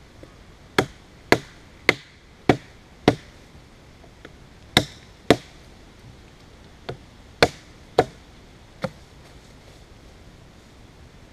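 A Mora Robust knife chopping into a wooden branch: about eleven sharp blows about half a second apart, in three groups: five, then two, then four, the last few weaker.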